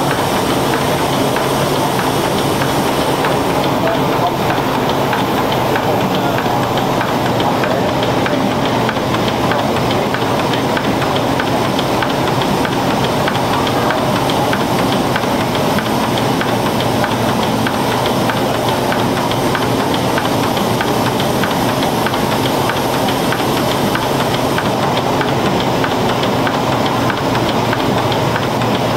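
Horizontal stationary steam engine running steadily, steam hissing from around its cylinder and valve gear.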